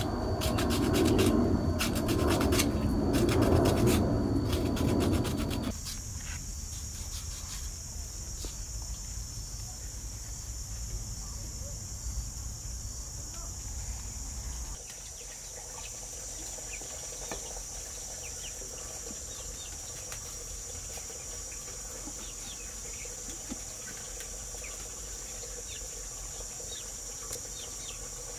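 Bamboo being scraped by hand with a loud, rough rasping stroke sound that stops suddenly about six seconds in. After that a steady high insect drone carries on, with a few faint ticks.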